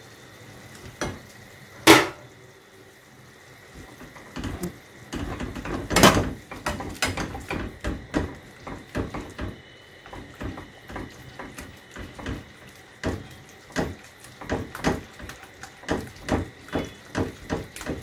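Metal spoon scraping and knocking against nonstick pans as thick white sauce is scraped from one pan into another, with a sharp knock about two seconds in. Then a metal spatula stirring the sauce in a nonstick pan, scraping and knocking against it about twice a second.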